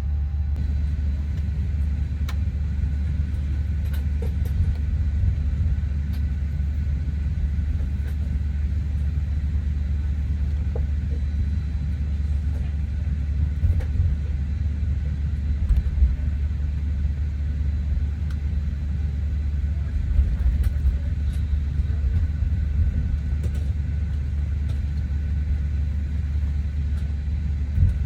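Steady low rumble and hum inside the cabin of a Boeing 737-800 airliner on the ground before departure, with a few faint clicks.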